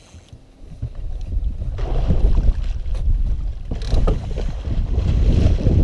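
A hooked musky thrashing and splashing at the surface as it is scooped into a landing net, starting about a second in and heaviest in two spells, with wind buffeting the microphone.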